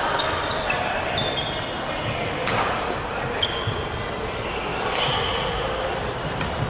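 Badminton rally: sharp racket hits on the shuttlecock a couple of seconds apart, with short high squeaks of court shoes on the wooden floor between them, over a steady echoing hall noise.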